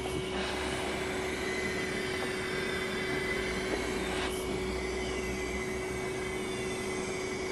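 Large home-built model beam engine running slowly on compressed air through its new valves: a steady hiss of air under a steady hum, with two louder rushes of air, shortly after the start and about four seconds later.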